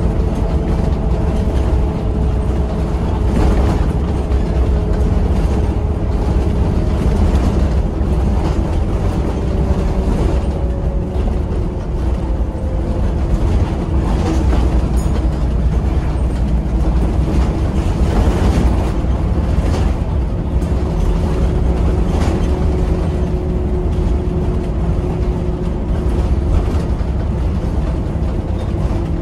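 Volvo B7RLE bus heard from inside the saloon while under way: a steady low diesel drone with the whine of its ZF automatic gearbox over it, the whine slowly falling in pitch. A few knocks and rattles from the body come through now and then.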